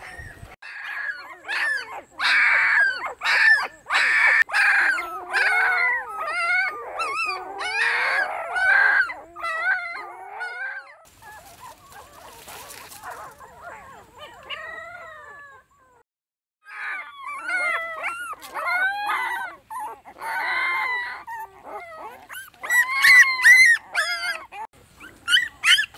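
Newborn puppy whimpering and crying in high, wavering yelps, one after another. The cries thin out and stop briefly about halfway through, then come back louder near the end.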